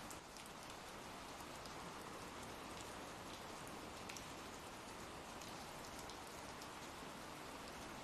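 Steady, faint rain falling, an even hiss of rain with scattered small drop ticks.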